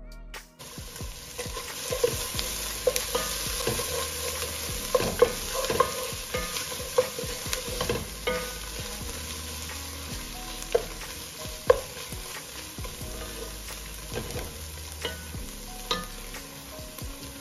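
Sliced onions and tomato paste sizzling in hot oil in a granite-coated pot, with a wooden spoon stirring and scraping through them and knocking against the pot now and then, a few knocks sharper than the rest.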